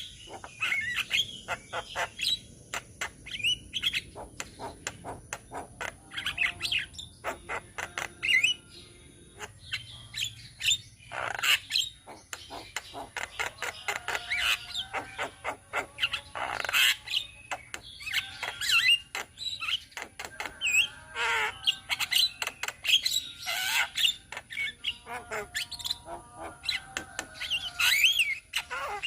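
Several Javan mynas (jalak kebo) singing together: a busy, unbroken chatter of sharp clicks, whistled glides and harsh squawks overlapping one another.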